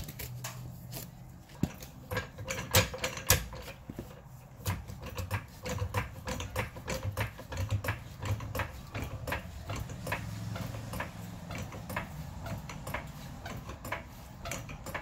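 Hydraulic floor jack being worked under the front of a Nissan Elgrande van: a string of irregular metallic clicks and clanks as it raises the front, over a low steady hum.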